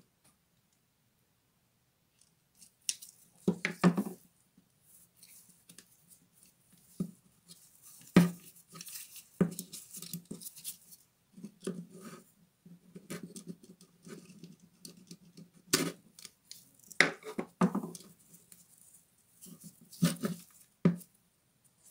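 Irregular clicks, taps and rustles of the plastic housing, switch and wiring of a Bosch GWS 7-125 angle grinder being handled and pulled apart, starting about three seconds in, with short quiet gaps between.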